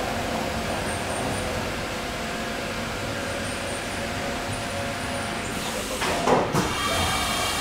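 Haas CNC vertical mill face-milling under flood coolant: a steady cutting noise with coolant spraying, from a 3-inch six-insert face mill on a finishing pass. About six seconds in the cut ends as the spindle lifts clear, and two loud clunks follow.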